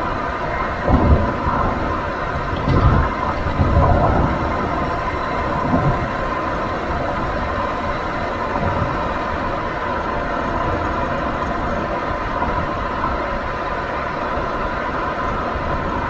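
Nissan Serena C25 on the move: steady road and tyre rumble, with a few low thumps about 1, 3, 4 and 6 seconds in, then only the steady running noise.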